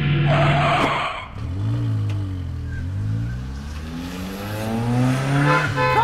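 A car engine revving, its pitch rising and falling several times, with a noisy rush in the first second.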